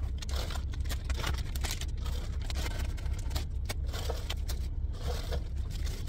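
Plastic bags rustling and crinkling, with scrapes and light knocks, as food is taken out of a mini fridge, over a steady low rumble.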